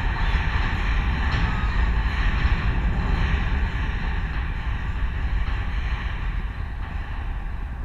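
Loud, steady low rumbling noise with a hiss above it, slowly fading across the seconds.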